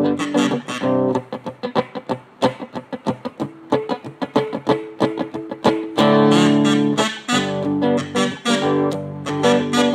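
Guitar being played: a run of quick, short picked notes, then from about six seconds in, fuller ringing chords.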